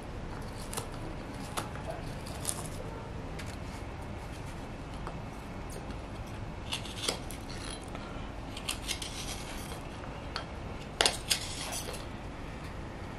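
Hook knife cutting shavings from the hollow of a birch wooden cup (kuksa): short, irregular scraping strokes with pauses between, the loudest cluster about eleven seconds in, over a steady background hiss.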